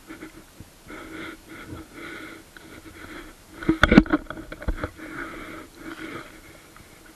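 Water sloshing and splashing around a carp held in the shallows for release, with one loud splash about four seconds in.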